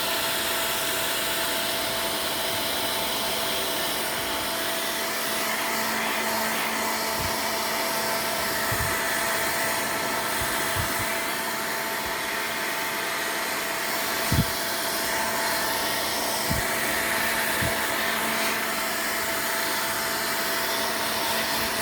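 Hair dryer running steadily, blowing a kitten dry after its bath. A few brief low bumps come through it, the loudest about two-thirds of the way in.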